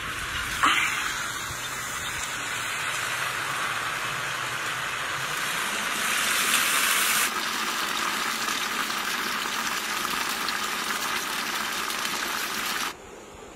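Steam hissing from a hot cooking pot as its lid is lifted. There is a sharp knock of the lid less than a second in, and the hiss swells louder for about a second partway through as the steam billows out. The steady rush then stops abruptly near the end.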